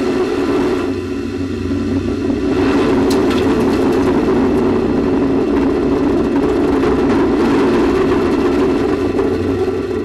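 Steady rocket roar picked up by an onboard camera on the Space Shuttle Endeavour's launch stack as a solid rocket booster separates and falls away. The roar grows a little louder about two and a half seconds in.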